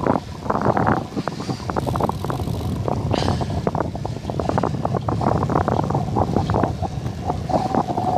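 Wind buffeting the microphone of a camera carried on a moving road bicycle: a steady rush with rapid, irregular flapping.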